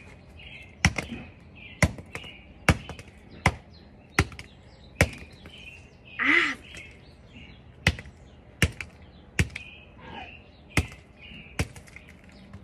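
A claw hammer striking a rock-hard frozen plastic water bottle again and again, about a dozen sharp blows a little under a second apart, with a pause near the middle. A short call sounds during the pause, and birds chirp faintly.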